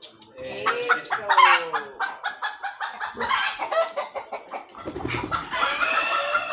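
Chickens clucking and calling in quick short notes at close range, with a longer, drawn-out rising-and-falling call near the end that fits a rooster crowing.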